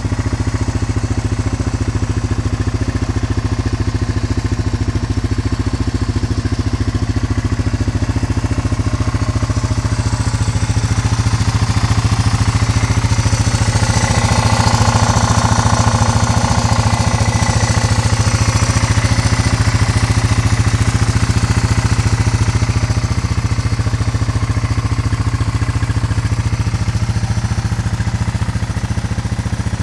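Honda TRX300 4x4 quad's single-cylinder four-stroke engine idling steadily, growing louder and brighter for several seconds in the middle.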